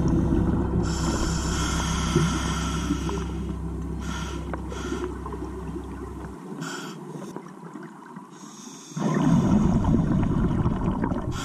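Scuba diver breathing through a regulator, heard underwater: hissing inhalations, then a rush of exhaled bubbles that starts abruptly about nine seconds in.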